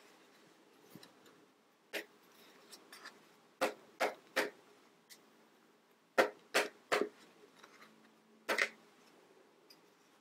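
Hard plastic parts of a Play-Doh playset clacking and knocking as the press is taken apart and knocked to free the moulded dough. There are about eight sharp clacks, two of them quick runs of three.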